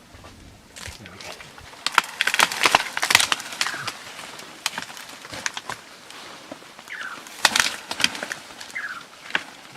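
Plant stems and leaves snapping and crackling in irregular bursts, densest about two to four seconds in. A few short, falling bird chirps come in the second half.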